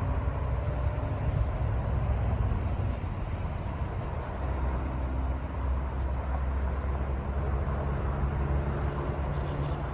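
A lone CSX diesel locomotive, with no cars behind it, running with a steady low engine rumble.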